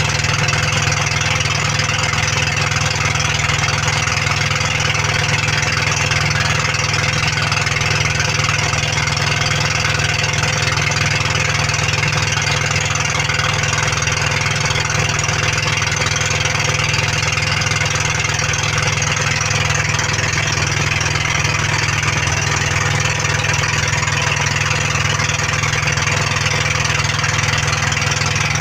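Pumpboat engine running steadily, a loud continuous drone that holds the same speed throughout.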